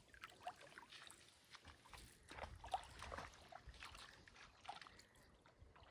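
Faint river water sloshing and trickling, with a scatter of small irregular splashes and drips.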